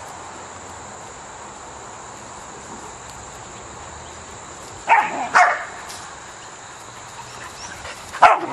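Dog barking: two sharp barks about five seconds in, half a second apart, and another near the end, over a steady faint hiss.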